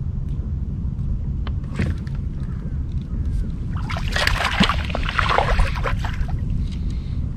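Steady low rumble of wind and water around a boat. From about four seconds in, some two seconds of splashing and clattering as a hooked crappie is brought up to the boat on a spinning rod.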